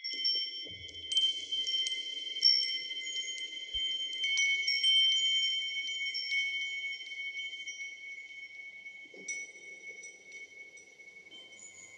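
Metal tube wind chimes struck by their wooden striker ball: a series of strikes, each setting off clear ringing tones that overlap and hang on. The ringing fades toward the end.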